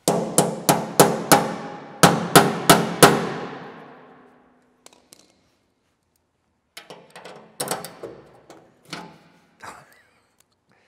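A metal tool striking the steel carrying handle of an old P&H AC arc welder to knock it loose. Nine sharp clangs in two quick runs of five and four, each with a ringing tail. Softer clinks and rattles of small metal parts follow about seven seconds in.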